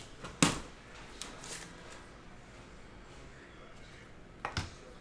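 Trading cards being handled: a sharp tap or knock about half a second in, a few light clicks and rustles, then two quick taps near the end.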